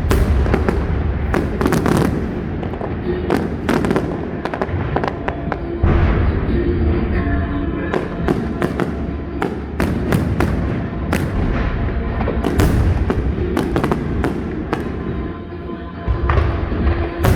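Large aerial fireworks display: shells bursting in rapid, overlapping succession as sharp bangs and crackles over a continuous deep rumble, with music playing underneath.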